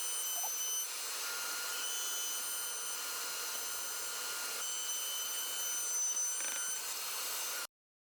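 Shop vacuum running: a steady rush of air with a high motor whine. The sound shifts abruptly about a second in and again about halfway through, then cuts off suddenly near the end.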